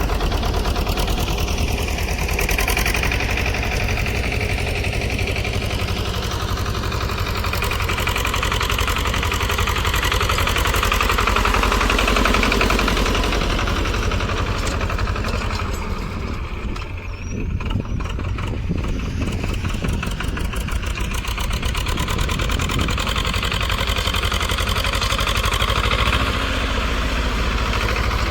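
Swaraj 724 tractor's two-cylinder diesel engine running at full revs as the tractor is driven in high range. The sound dips briefly about two-thirds of the way through, then comes back up.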